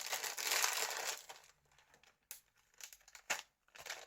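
Crinkling of packaging being handled for about a second and a half, then a few light taps and clicks.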